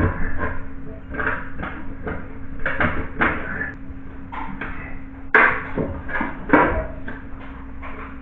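Irregular knocks, clatter and scraping of hand work on a sheet-metal heating duct, with the loudest knocks a little past the middle. A steady low hum runs underneath.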